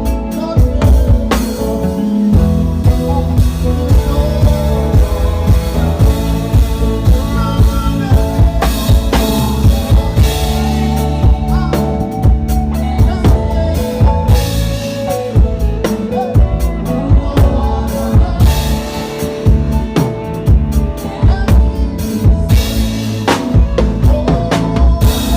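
A live band playing a gospel worship song without vocals, a drum kit prominent with kick, snare and rimshots over a steady bass line and held chords.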